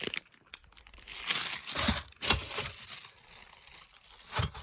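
Plastic bag of ceiling-fan mounting hardware being handled, crinkling and rustling in irregular bursts, with a louder crackle near the end.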